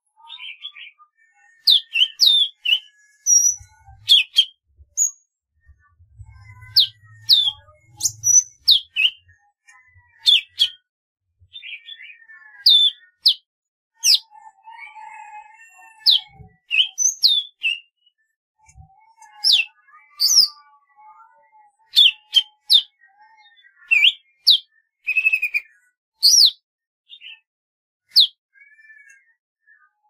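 Golden-fronted leafbird singing: quick, sharp high whistled notes that sweep down in pitch, delivered in clusters with short gaps, mixed with softer, lower warbled notes.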